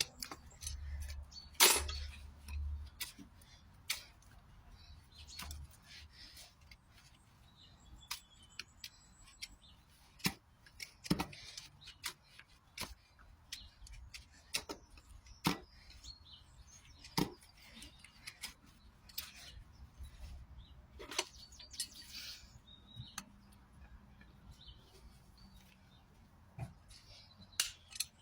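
Irregular sharp clicks and snips of hoof-trimming tools cutting into a horse's hoof, with a few low thumps in the first few seconds.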